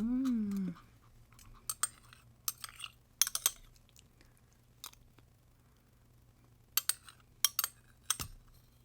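Scattered light clicks and clinks of a spoon against a plate, a dozen or so spread unevenly across several seconds. A short voiced 'mm' falling in pitch comes right at the start.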